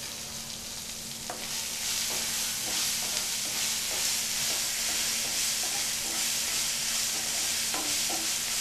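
Chopped onions and tomatoes sizzling in a nonstick frying pan, stirred with a wooden spatula that knocks and scrapes against the pan at irregular moments; the sizzle grows louder a little over a second in.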